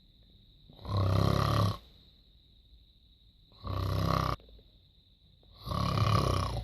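A person snoring loudly: three long snores about two seconds apart, each lasting about a second, with quiet breaths between.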